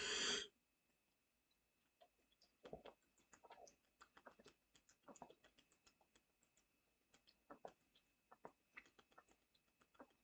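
Near silence: scattered faint, irregular clicks over a faint steady high tone.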